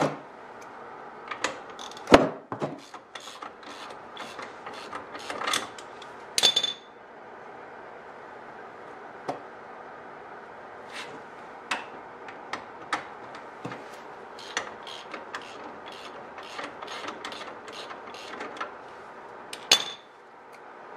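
Socket ratchet wrench clicking in short strokes while loosening a brake caliper bolt, with a few sharp metal clanks of tools about two, six and twenty seconds in.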